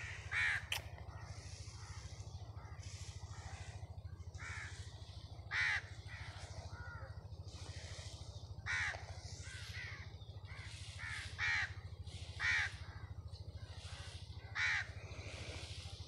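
A crow cawing: single short caws every few seconds, about six in all, over a steady low hum.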